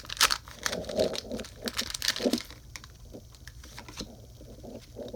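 Foil wrapper of a Pokémon TCG booster pack crinkling and tearing as it is opened, for about the first two and a half seconds. After that come quieter, softer rustles and taps.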